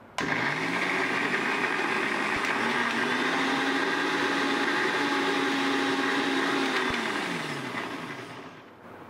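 Electric mixer grinder running with its small stainless-steel chutney jar, grinding a cooled boiled spinach mixture into a paste. The motor starts suddenly and climbs in pitch, runs steadily, then is switched off about seven seconds in and winds down with falling pitch.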